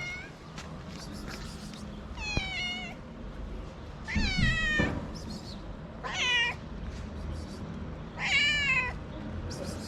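A hungry stray cat meowing repeatedly, four drawn-out meows about two seconds apart, each bending in pitch.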